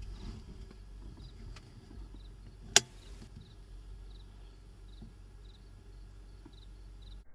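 A single sharp click about three seconds in, over a low steady rumble, with faint high chirps repeating about twice a second.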